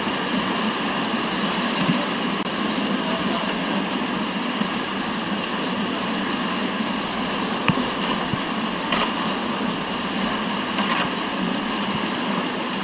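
Steady rush of whitewater on a mountain river, with a few faint knocks.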